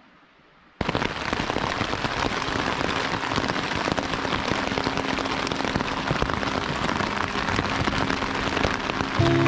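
Heavy rain falling on a surface, a dense even hiss of many small drop hits that starts suddenly about a second in. Music comes in near the end.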